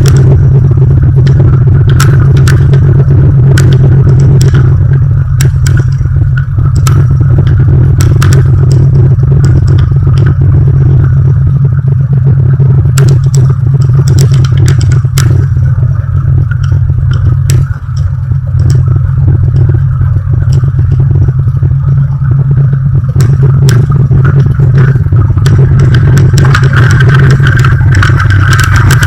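Light aircraft's piston engine running steadily and loud, with frequent sharp clicks and rattles over the drone.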